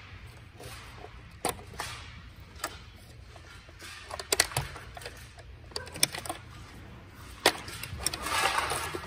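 Plastic wiring-harness connectors being unplugged from a Kia EV6 battery pack's power relay assembly: scattered sharp clicks and knocks, with rustling of the harness near the end. A steady low hum runs underneath.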